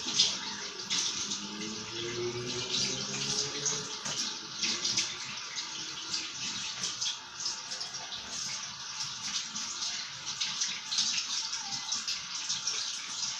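Water running from a tap and splashing as hands are washed under it, scrubbing off sticky slime.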